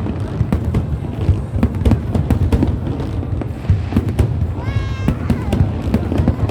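Fireworks going off in a dense, continuous run of bangs and crackles. About five seconds in, a short honk-like tone rises and then holds briefly over them.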